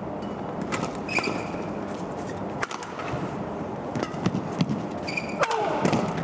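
Badminton doubles rally: a string of sharp racket strikes on the shuttlecock, roughly one a second, with brief shoe squeaks on the court mat, over steady crowd noise in an indoor arena.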